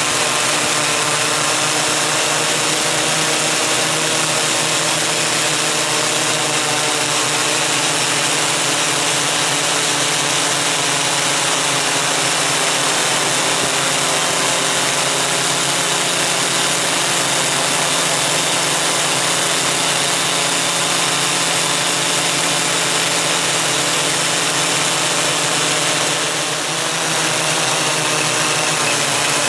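Steady whir of a MikroKopter Koax-Quadro X8 multicopter's eight electric motors and propellers, heard close up from the camera it carries. Near the end the sound dips briefly and its pitch bends as the motor speed changes.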